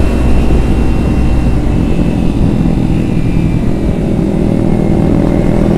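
Kawasaki Ninja 250Fi's parallel-twin engine running at a steady cruise as the bike rides along, with a dense rush of wind and road noise.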